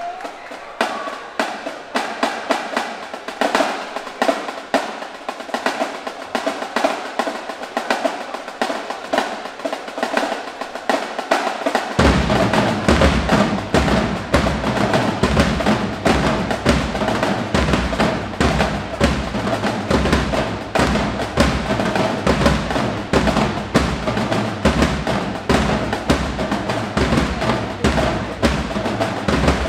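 Marching band drumline playing a fast cadence. Snare drums play alone at first. About twelve seconds in, bass drums join with deep, heavy beats under the snares.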